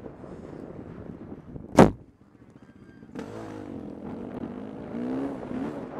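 450cc four-stroke dirt bike racing, its engine heard under wind on the microphone. A single loud, sharp crack comes a little under two seconds in, the sound drops away briefly, and from about three seconds in the engine revs up and down again.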